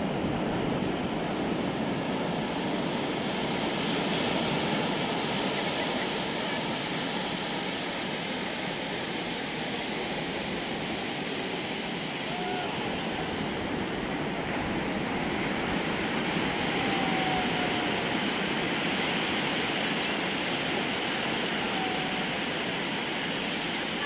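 Ocean surf breaking on a beach: a steady rush of waves that swells gently now and then.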